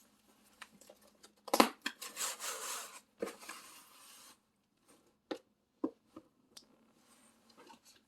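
A cardboard subscription box being opened by hand: a sharp snap about a second and a half in, then a spell of tearing and rustling packaging, then a few scattered light clicks and taps.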